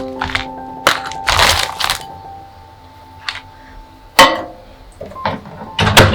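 Sharp knocks and clicks of objects being handled and set down, with a brief noisy rush about a second in, over soft background music of sustained piano-like notes.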